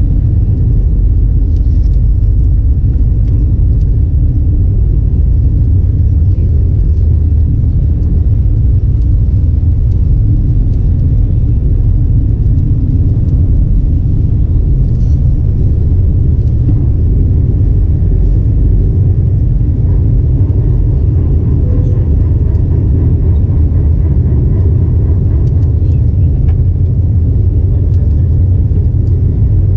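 Airbus A320 cabin noise: a steady, loud, low rumble of the jet engines and airflow, unchanging throughout.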